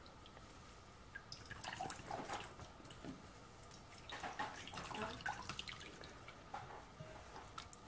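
Water dripping into a glass bowl as steamed cauliflower is wrung out in a cloth towel: faint, irregular drips and splashes.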